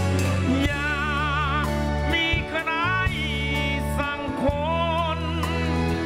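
Live band performing a slow song: steady bass notes and drums under a lead melody of long held notes with wide vibrato.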